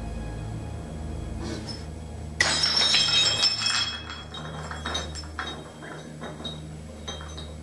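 A sudden crash and clatter of breaking glass about two and a half seconds in, ringing for over a second, followed by a few scattered clinks as pieces settle. A low steady hum runs underneath.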